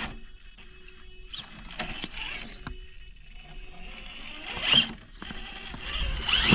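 Electric drivetrain of an RC rock crawler truck whining in two short rising bursts as it climbs a rock ledge, with a few sharp clicks and knocks of tyres and chassis on stone.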